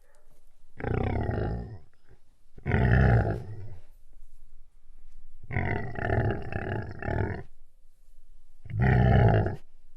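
Sound-effect calls of a large wild beast: four deep calls about a second each, the third longer, nearly two seconds, with a pulsing rhythm.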